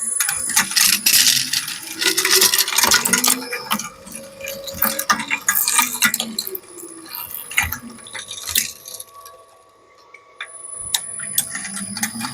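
Industrial shredder chewing up a hair dryer: dense cracking, snapping and rattling of plastic and metal parts breaking, with squealing grinding tones. It eases off briefly about ten seconds in, then picks up again.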